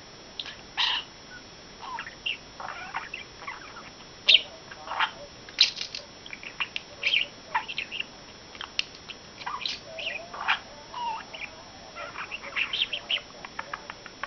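Pet budgerigar chattering: a busy run of short chirps, clicks and squeaks with brief pauses between them.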